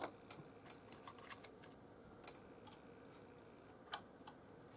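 Scattered light clicks and taps of hands handling a plastic model kit and setting a small glass bottle down on a workbench. A sharp tap comes at the start and another about four seconds in, with softer clicks between.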